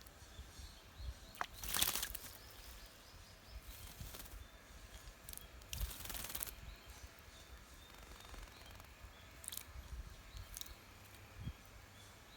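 Brown-eared bulbul splashing in a shallow water bath: two strong bursts of splashing, about two seconds in and about six seconds in, with a couple of fainter flicks later. Faint songbird calls and a low outdoor rumble behind.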